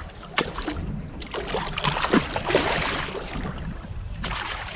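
Sea water splashing and sloshing irregularly against the side of a small boat, in short uneven splashes.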